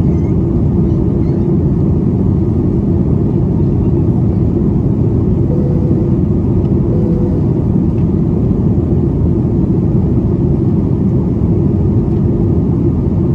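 Steady cabin noise of a Boeing 737 MAX 9 in flight, heard from a window seat: a loud, even rumble of its CFM LEAP-1B turbofans and airflow, with a faint steady hum.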